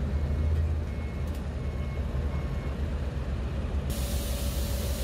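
Heavy diesel engines of a dump truck and an asphalt paver running in a steady low rumble, with faint short high beeps, typical of a backup alarm, in the first half.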